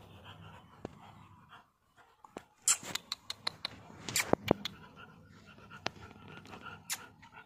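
Chow chow puppies playing in a cage, with a faint background of breathing and movement and scattered sharp clicks and taps, thickest in the middle.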